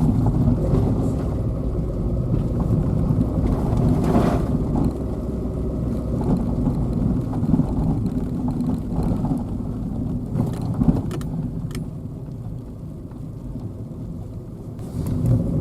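Citroën Saxo driving slowly through fresh snow about 15 cm deep: a steady low rumble of engine and tyres, easing off for a few seconds near the end.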